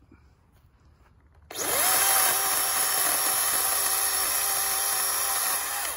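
Cordless electric chainsaw spinning up about a second and a half in, then running at a steady pitch as it cuts through a tree branch stub, stopping just at the end.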